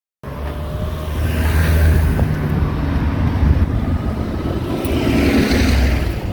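Street traffic: cars running close by, a loud low rumble that swells twice as vehicles pass.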